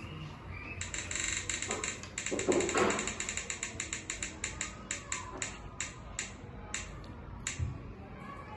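Spinning-wheel app ticking through a phone's speaker after the wheel is flicked: rapid clicks that slow steadily as the wheel winds down, the last few well apart, stopping about seven and a half seconds in.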